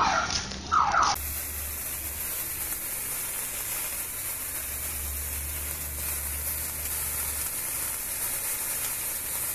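A burning sparkler sizzling with a steady, even hiss. In the first second, before it, a few high squealing sweeps in pitch cut off suddenly.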